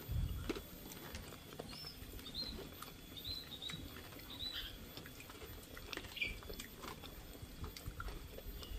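Hand-eating sounds: quiet chewing with small clicks and taps of fingers and food on plates, and a low thump just after the start. Short high bird chirps come about once a second through the first part.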